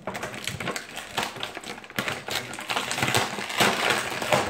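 Small plastic toy pieces being handled off to the side, a dense irregular run of light clicks and clacks.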